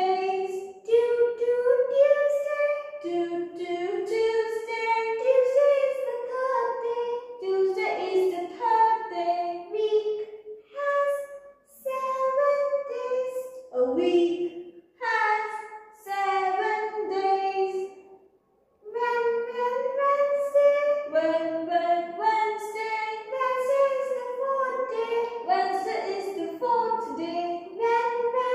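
A high voice sings a simple children's song in short melodic phrases, with brief pauses between lines and a longer break about two-thirds of the way through.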